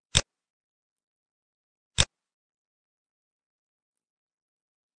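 Two sharp computer mouse clicks, about two seconds apart.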